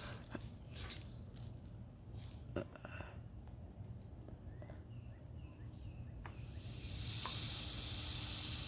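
Compressed air hissing as it is let into a pneumatic cylinder from an air compressor line. The hiss starts about six seconds in, builds quickly and then holds steady.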